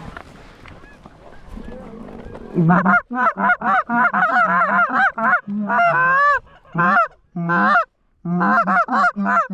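Goose calls blown hard and fast: rapid honks and clucks, each low note breaking sharply up into a high honk, coming in quick runs with short gaps. They start about two and a half seconds in, after a quieter stretch.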